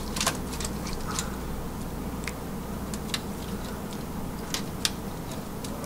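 Scattered light clicks and taps of a silicone basting brush working a sauce onto meat, knocking against a glass bowl and a foil-lined dish, over a steady low hum.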